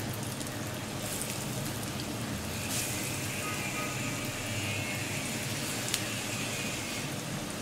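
Hot oil sizzling in a shallow frying pan as breaded chicken nuggets are laid in. The sizzle grows fuller about three seconds in.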